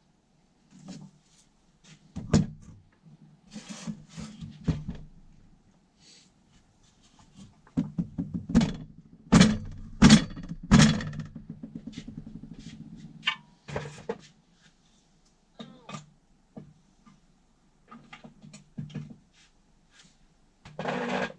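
Knocks and thuds from beating on a KD175 engine's crankshaft to split the crankcase. A few scattered knocks come first, then a run of about four heavy blows partway through, followed by lighter knocks.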